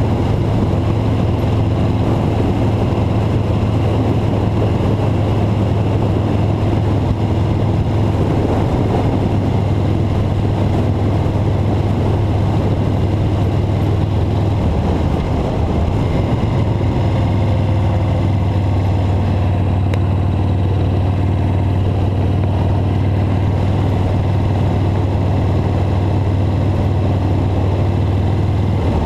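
Steady drone of a vehicle driving along a road: engine and road noise, heard from a camera mounted on the vehicle, with a brief small dip about halfway through.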